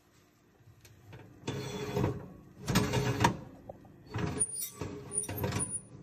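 Metal wire oven rack being slid along its oven rails: four separate scraping rattles, the first about a second and a half in.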